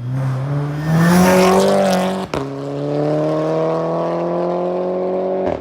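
Mk6 Golf GTI's turbocharged 2.0-litre four-cylinder with a catless downpipe and aftermarket catback exhaust, heard inside the cabin under hard acceleration. The revs climb, drop sharply at a gear change about two seconds in, then climb again more slowly in the next gear, and the sound cuts off abruptly near the end.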